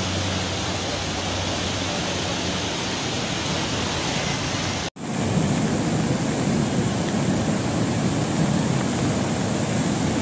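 Steady rushing roar of the flooded, muddy Swat River in spate, with a faint low hum under it in the first half. About halfway through the sound cuts out for an instant and comes back fuller and deeper.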